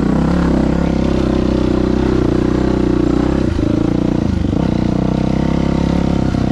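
Yamaha YZ426F dirt bike's four-stroke single-cylinder engine running while riding, its note dipping briefly twice about halfway through.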